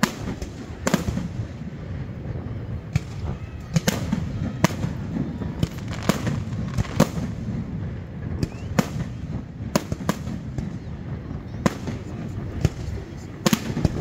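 Aerial fireworks shells bursting in an irregular run of sharp bangs, about one a second, some in quick pairs, over a continuous low rumble.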